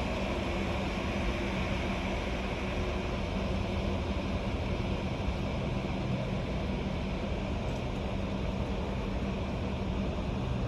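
Steady rushing noise with a constant low engine-like hum underneath, unchanging throughout.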